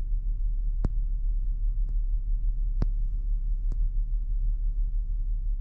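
Steady low rumble of the ferry Sunflower Sapporo under way, its engines and hull heard inside a passenger cabin, with four faint clicks spread through it.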